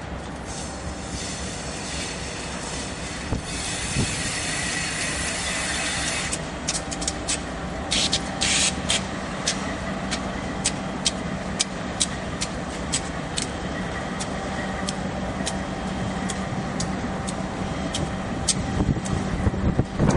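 Union Pacific GE wide-cab diesel locomotives (C44-9W and C40-8W) rolling slowly at low throttle, with a steady engine drone. A hiss runs for about three seconds near the start. From about six seconds in, the wheels click sharply over rail joints and switch points, a few clicks a second.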